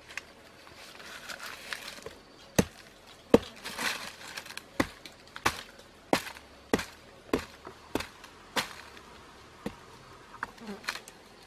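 A knife blade chopping into a rotten, decayed log, about ten even strokes a little over half a second apart, with crackling of crumbling wood around them. A few lighter knocks and crackles near the end.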